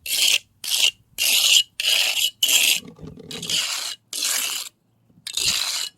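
Trowel scraping through wet cement resurfacing mix in a series of short strokes, about eight of them in quick succession with brief pauses between.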